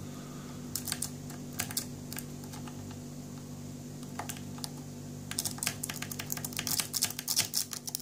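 Rake pick scraping and clicking over the wafers of a cheap three-wafer KORJO TSA luggage lock under tension, held in a vise. The clicks are scattered at first, then turn into a fast, dense rattle about five seconds in, as the picker rakes harder on a lock that is hard to tension.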